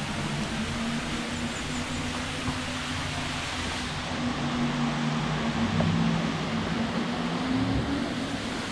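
Waterfall rushing steadily, swelling for a few seconds in the middle, with a low wavering hum underneath.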